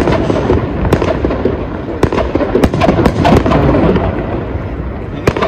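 Fireworks display: a continuous din of bangs and rumbling with sharp cracks every half second to a second, easing slightly near the end.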